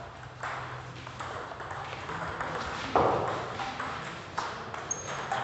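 Table tennis ball clicking back and forth between the rubber paddles and the table during a rally, with a louder knock about three seconds in.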